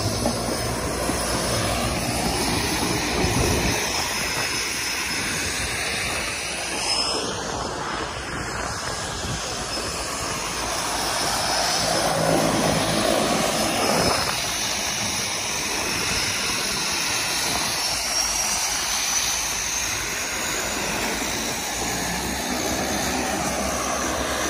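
Twin Otter floatplane's turboprop engines running, a steady roar with a high turbine whine that rises in pitch in the second half.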